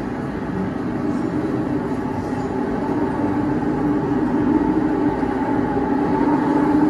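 A film soundtrack played over theatre speakers: a steady rumbling drone with held low tones, slowly growing louder.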